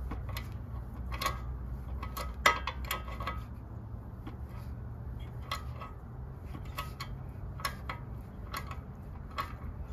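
Light, irregular metallic clicks and clinks as a Honda GCV engine's crankshaft is turned by hand with the valve cover off, over a low steady hum. The crank turns while the piston stays put, which the mechanic takes for a broken connecting rod.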